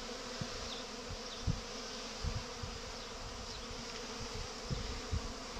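Honeybees buzzing steadily at a hive entrance, a busy flight of foragers coming in loaded with pollen. A few soft low thumps sound, the strongest about a second and a half in and near the end.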